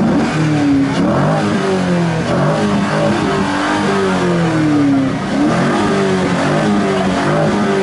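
A stationary C5 Chevrolet Corvette's V8 being revved over and over, its pitch climbing and dropping again in repeated swells every second or two.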